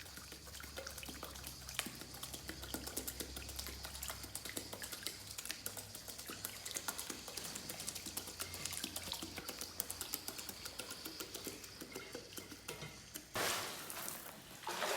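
Faint water sounds, small lapping and dripping with many tiny ticks, over a soft low hum, and a brief rush of noise near the end.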